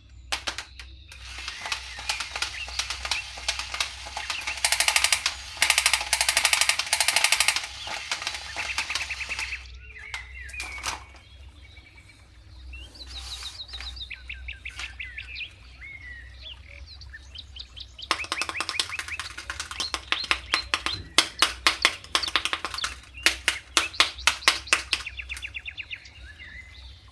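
Crinkling and clicking of plastic toy packaging being handled and opened, in two long spells, with birds chirping faintly in the quieter stretch between them.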